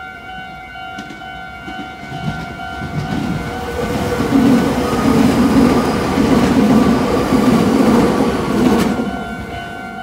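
Meitetsu electric commuter train passing over a level crossing. Its rumble and wheel noise build from about three seconds in and fall away sharply near the end as the last car clears. The crossing's electronic warning bell rings steadily at the start and end, drowned out by the train in the middle.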